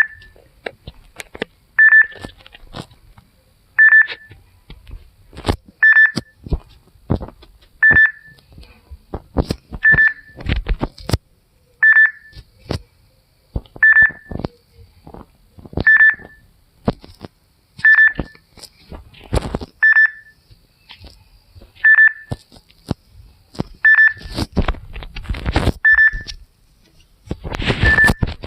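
Jeep warning chime: a short, high electronic beep repeating every two seconds. Clicks and knocks fall between the beeps and get louder near the end.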